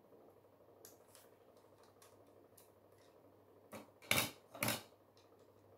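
Plastic Lego bricks clicking and clattering as they are handled and pressed together, with a few faint clicks and then two louder clatters about four seconds in, half a second apart.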